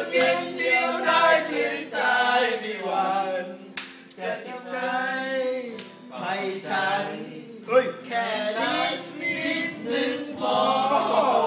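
Several men singing together, sung phrases with short breaks between them.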